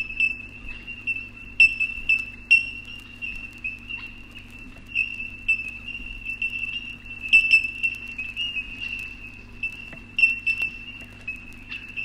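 A chorus of bell miners (bellbirds) calling: many sharp, metallic 'ting' notes overlapping into a steady high ringing like sleigh-bells.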